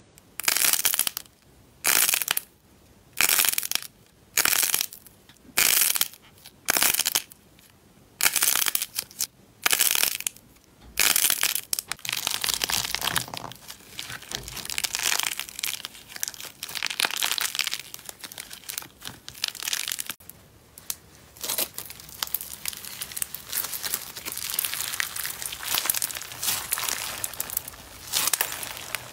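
Hands squeezing and crushing crunchy coated slime balls: a string of sharp crunches about one a second, then steady crinkling and crackling as the cracked coating and a foam-bead slime are kneaded and stretched.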